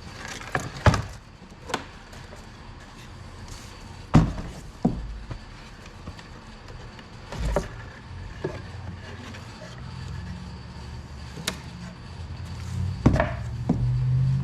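Wooden beehive parts being handled and set down: scattered wooden knocks and clunks at irregular intervals. A low steady hum comes in during the second half.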